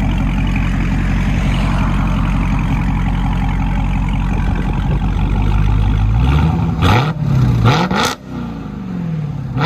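Dodge Charger Hellcat Redeye's supercharged 6.2 L Hemi V8 running loud and steady through a Borla ATAK cat-back exhaust. About six seconds in it is blipped several times, the pitch rising and falling with each rev.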